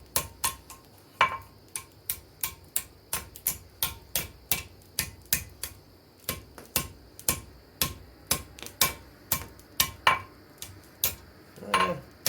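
Blacksmith's hand hammer striking hot steel on an anvil, hand-forging a tool: steady blows about two a second, many with a short metallic ring.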